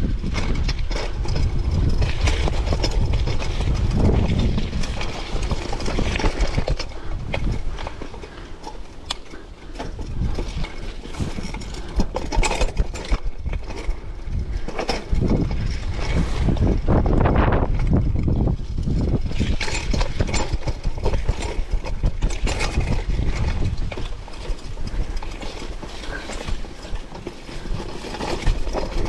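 Mountain bike ridden fast over rough trail: continuous rattling and knocking of the bike over roots and rocks, tyres on dirt, under a heavy low rumble.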